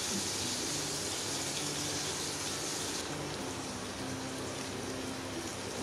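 Potatoes, peas, onion and tomato sizzling in hot oil in a non-stick pan: a steady frying hiss that eases slightly about halfway through.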